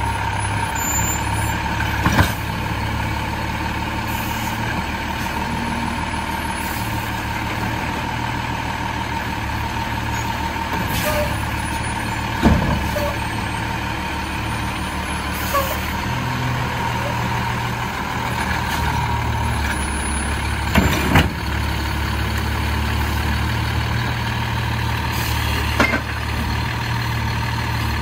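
Diesel Autocar WXLL garbage truck with a McNeilus Autoreach side-loading arm, its engine running steadily with a steady thin whine over it. Several short, sharp sounds break through, the loudest about halfway and about three-quarters of the way through.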